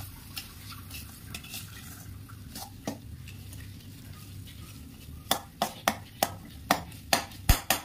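A perforated metal spoon stirs and scrapes a thick tomato-and-chilli masala sautéing in oil in a metal kadai, with a faint sizzle of frying. From about five seconds in, the spoon knocks against the pan in quick clicks, about three a second.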